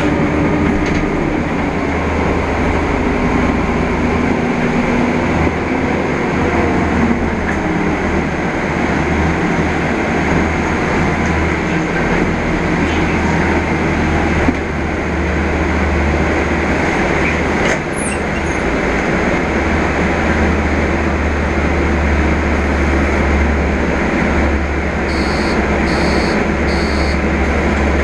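Interior of a Mercedes Conecto G articulated city bus under way: a steady low engine drone mixed with road and cabin noise. Three short faint high beeps sound near the end.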